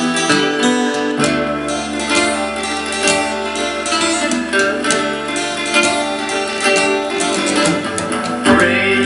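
Cutaway acoustic guitar played along with a recorded backing track: held chords over changing bass notes and a steady beat, with a rising glide near the end.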